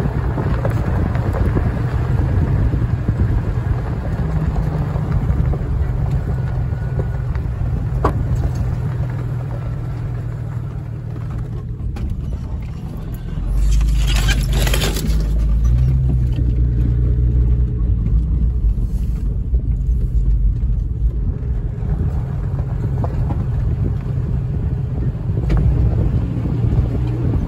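Off-road vehicle driving slowly on a desert dirt track: a steady engine and tyre rumble with wind noise. About halfway through the rumble swells and there is a brief scratchy rush as roadside brush scrapes along the vehicle.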